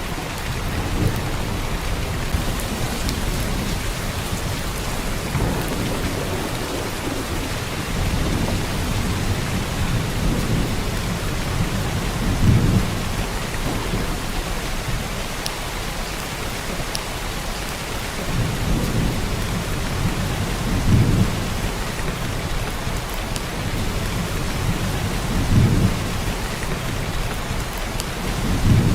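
Heavy downpour of rain hissing steadily. A few brief low rumbles swell up several seconds apart.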